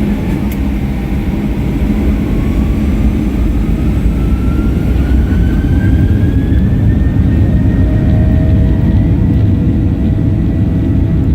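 Airliner's engines heard from inside the cabin during takeoff: a loud, steady low rumble with a whine that rises in pitch over several seconds as thrust builds.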